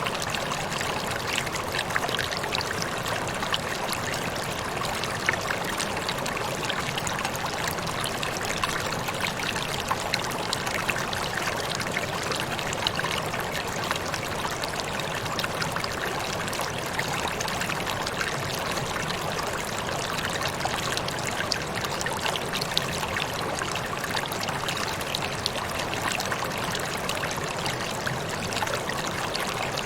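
Waterfall: water falling and splashing in a steady rush, with fine spattering throughout.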